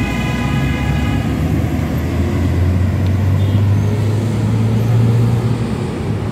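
Road traffic on a busy city street. A heavy vehicle's engine drone builds about a second and a half in, is loudest about five seconds in, and eases near the end. At the start a high, steady whine of several notes fades out.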